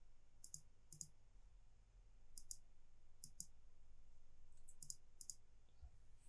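Faint clicks of a computer pointing device. About six clicks come at uneven intervals, each a quick double tick of press and release.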